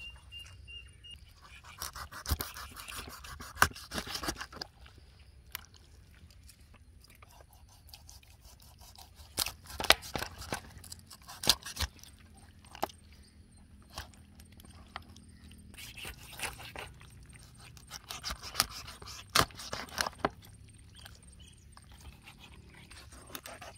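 Large knife cutting and scoring raw whole chickens on a steel tray: scraping and crunching of the blade through skin, flesh and bone, with sharp knocks at irregular intervals.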